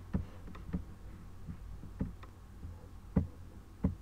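About five soft, irregularly spaced knocks over a low steady hum. The two loudest come in the second half.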